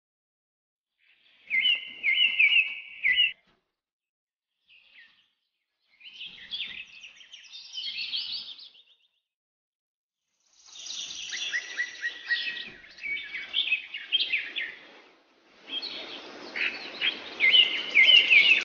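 Birds chirping and twittering in several short bursts of quick, high notes. A broader noise lies under the calls in the last few seconds.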